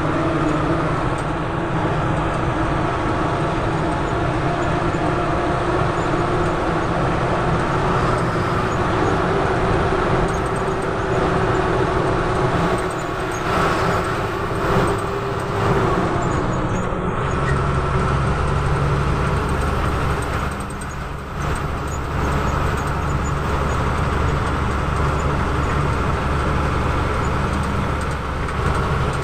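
Bus engine running with road and cabin noise, heard from inside the moving bus; the low engine drone changes and grows stronger a little past halfway.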